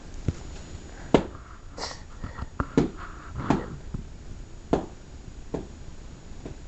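Scattered knocks and taps at uneven intervals, about half a dozen over several seconds, with a brief hissing scrape about two seconds in.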